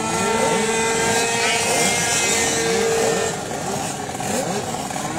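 Several racing scooters' small engines running on the starting grid, blipping their throttles in many short overlapping revs, with one engine held at steady high revs for about the first three seconds.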